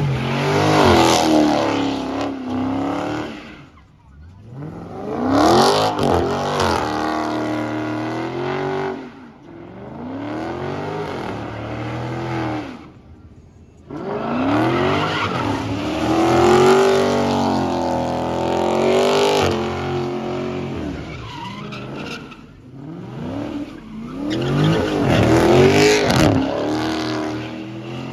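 Dodge Charger doing donuts: the engine revs hard with the wheels spinning, rising and falling about six times, over the screech of spinning tyres.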